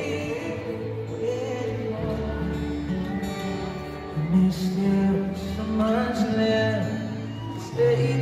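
A pop band playing live: male voices singing held, gliding notes over acoustic guitar and a low bass line, as heard from the arena crowd.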